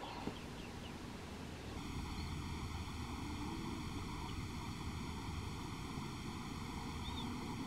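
Steady outdoor background noise with a low wind rumble on the microphone.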